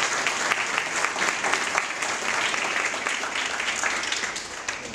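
Audience applauding: many hands clapping at once in a dense, steady patter, tapering off near the end.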